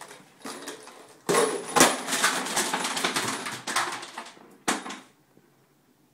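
A box full of metal screws and bolts thrown down a flight of stairs: the box and loose hardware clatter and rattle as they tumble for about three seconds, with one hard bang near the start and a last single knock near the end.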